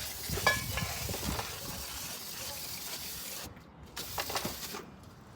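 Aerosol can of brake cleaner spraying in a steady hiss that cuts off about three and a half seconds in, followed by a second, shorter spray. A few light knocks come early on.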